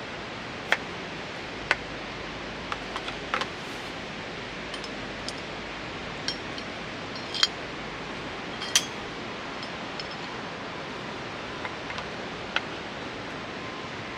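Cookware and utensils being handled, giving a dozen or so scattered sharp clinks and taps, the loudest about a second in, near the middle and just before nine seconds. Beneath them runs a steady rushing noise.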